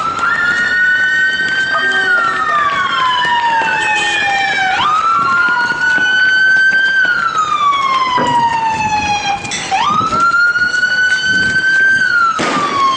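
Police vehicle siren wailing. Each cycle jumps up quickly, holds, then slides slowly down, repeating about every five seconds, three times in all.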